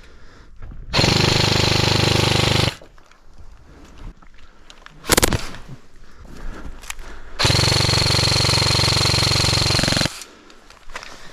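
Airsoft electric gun firing two long full-auto bursts with a steady motor whine, the first about a second in, the second, longer one about seven seconds in. A single short, sharp knock comes between them.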